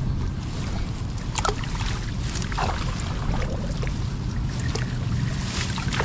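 Wind rumbling steadily on the microphone, with scattered short rustles and light knocks from grass and the net fish trap being handled.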